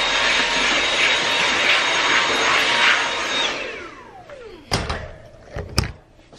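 Cordless handheld vacuum switched on, running with a steady high whine for about three and a half seconds, then switched off and spinning down with a falling whine. Two knocks follow near the end.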